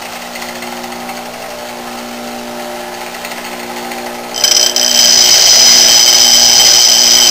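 Bench grinder running with a steady hum; about four and a half seconds in, a steel lathe tool bit is pressed onto the coarse wheel and a loud, high, steady grinding screech takes over. The bit is being ground to the front clearance angle of a right-hand turning tool.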